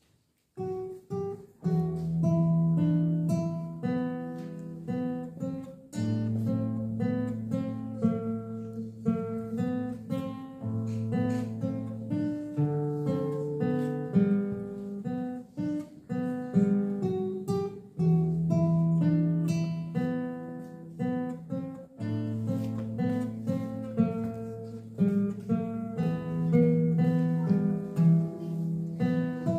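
Classical guitar played solo and fingerpicked: a melody over low bass notes in repeating phrases, starting about half a second in.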